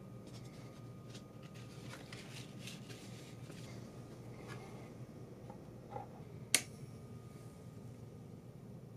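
A vinyl LP and its sleeve being handled and the record laid on a turntable platter: soft paper-and-vinyl rustles, then a small click and, about six and a half seconds in, one sharp click.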